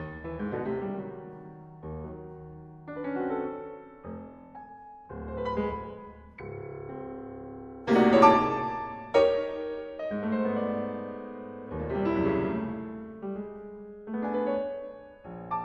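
Solo piano playing a slow modern classical piece: separate chords and notes struck at uneven intervals and left to ring and fade, with the loudest chord about eight seconds in.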